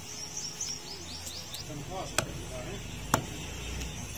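Butcher's cleaver chopping goat meat and bone on a wooden log block: two sharp chops about a second apart, in the second half.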